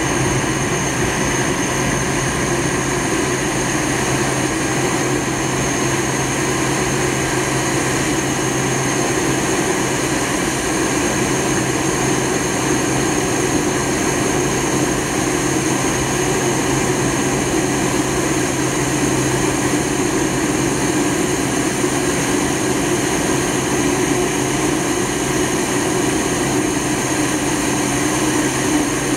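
Steady engine and airflow noise inside the cabin of a McDonnell Douglas DC-9-51 climbing after takeoff, its rear-mounted Pratt & Whitney JT8D turbofans at climb thrust. A few thin steady whines sit over the even rushing noise, which holds level throughout.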